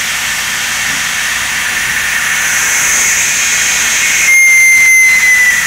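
CNC milling machine chamfering the top of a hole in an acrylic block, under a steady hiss of air blast from the nozzle. About four seconds in the sound grows louder and a clear whine comes in, falling slightly in pitch.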